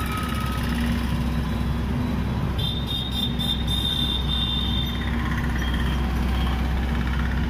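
Horizontal drilling rig's engine running steadily with a deep hum. A high squeal rises over it for about two seconds in the middle.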